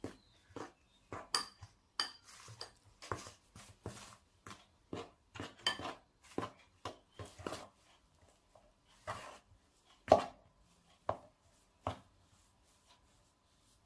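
Metal spoon knocking and scraping against a plastic mixing bowl as stiff cookie dough is stirred and pressed: irregular clicks and scrapes, with a louder knock about ten seconds in.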